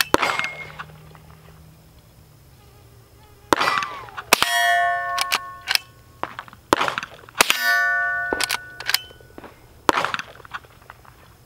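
Shots from a Henry H001 .22LR lever-action rifle, a few sharp cracks spaced seconds apart, with clicks of the lever being worked between them. Twice, a shot is followed by a ringing metallic clang lasting about a second: a steel target being hit.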